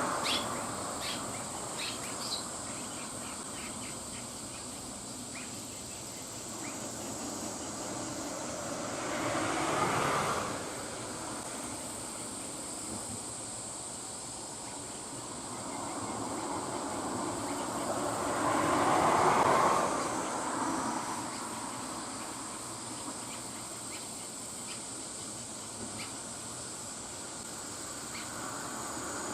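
Outdoor ambience: two vehicles pass one after another, each rising and fading over several seconds, about ten and nineteen seconds in, over a steady high-pitched insect drone. A few short faint chirps in the first two seconds or so.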